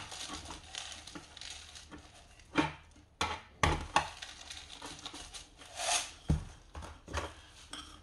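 Fine masa grit being worked by hand around a houseleek in an earthenware ttukbaegi pot: scattered scraping of grit with a handful of sharp clicks and knocks of grit, tweezers and pot.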